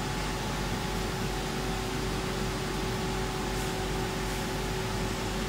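Steady fan-like machine hum with a constant low tone, unchanging throughout.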